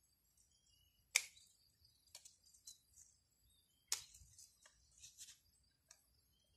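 Bonsai pruning scissors snipping twigs: two sharp snips, about a second in and about four seconds in, with a few fainter clicks of the blades in between.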